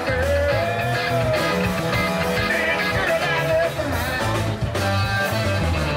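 Live rock band playing: electric guitars over bass and drums, with a melody line that slides up and down in pitch.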